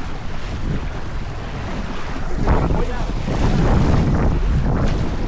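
Wind buffeting the microphone over water rushing along a sailboat's hull, with a few splashes.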